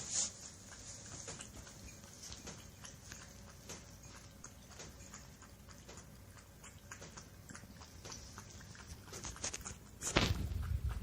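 A cat lapping water while lying down: soft, irregular wet clicks of the tongue, a few each second. About ten seconds in comes a louder rustle or thump.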